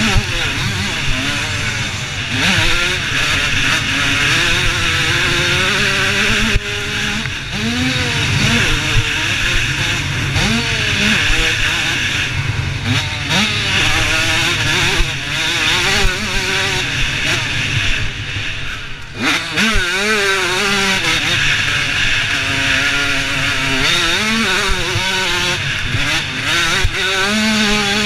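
Supermini-class motocross dirt bike engine under race throttle. The revs climb and fall again and again through gear changes and corners, easing off briefly about two-thirds of the way through. It is heard from the rider's helmet camera, close to the bike.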